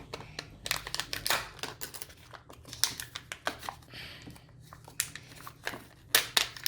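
Plastic wrapping crinkling and crackling as a Kinder Joy egg and its toy packet are unwrapped by hand, with many short sharp crackles and clicks.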